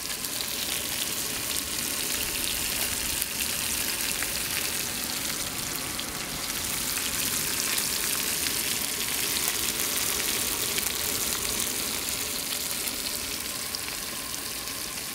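Pink snapper fillets frying in a small pan on a gas-canister camp stove: a steady sizzling hiss with scattered small crackles.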